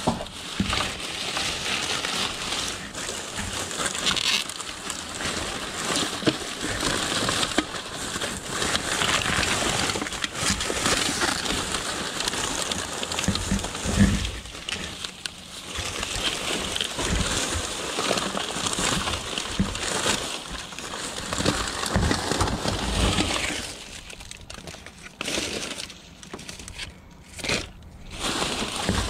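Plastic trash bags rustling and crinkling as gloved hands dig through them, with scattered bumps of items being moved and one loud thump about halfway through. The rustling turns patchy and quieter near the end.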